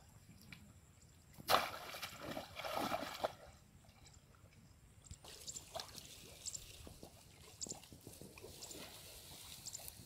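Muddy water splashing and sloshing as a person wades through a flooded rice paddy, loudest for about two seconds starting a second and a half in. After that, quieter small splashes among the rice plants, with faint high ticks about once a second.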